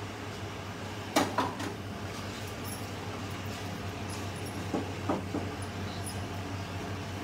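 A few sharp clicks and knocks from hands working at a steel gas range: a quick cluster about a second in and two more around five seconds. A steady low hum runs under them.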